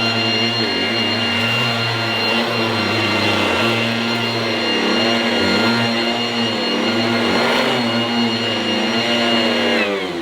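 Goblin Roto mains-powered handheld vacuum cleaner with a revolving brush, running loud and steady with a high whine. It is switched off near the end, and its pitch falls as the motor spins down.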